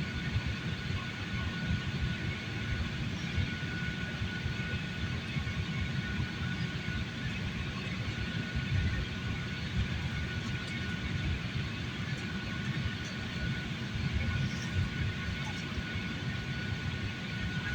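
Airliner engine and airflow noise heard inside the passenger cabin: a steady low rumble with a thin, even whine above it.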